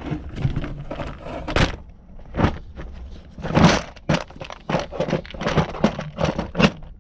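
Objects being rummaged through and moved by hand: an irregular run of sharp knocks and clatters with rustling between them, the loudest a longer scraping clatter a little past halfway.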